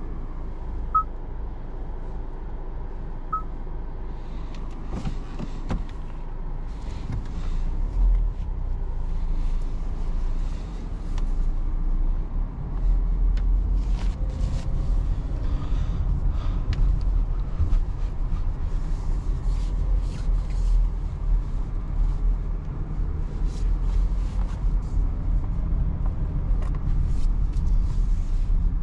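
Cabin sound of a Hyundai Tucson with a 1.6-litre engine driving on a dirt road: a steady low rumble of tyres and road noise that grows louder about halfway through, with frequent small knocks and clicks from gravel and bumps. Two short electronic beeps sound in the first few seconds.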